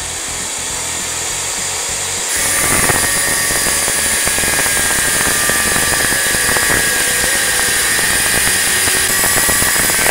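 Angle grinder with an abrasive cut-off disc spinning free, then cutting into a steel pipe from about two seconds in. Once the cut starts the sound grows louder, with a steady high whine over the grinding noise, and keeps on steadily.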